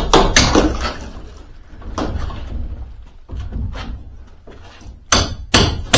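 A few sharp knocks in quick succession at the start, quieter handling and rustling in the middle, then three louder knocks close together near the end.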